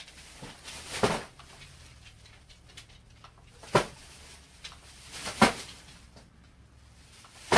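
Four sharp clicks or knocks, spaced one and a half to three seconds apart, over a faint low hum.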